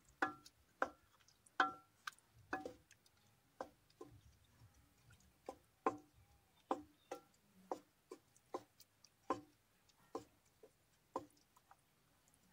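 Wooden spatula knocking against the sides of an aluminium cooking pot while stirring thick spinach curry: irregular knocks about one or two a second, each with a short metallic ring.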